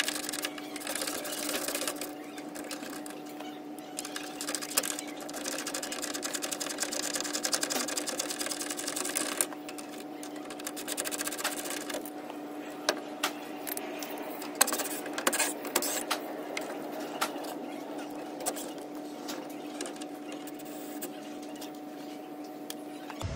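Cordless power drill running on and off in bursts, with a fast mechanical rattle, over a steady hum.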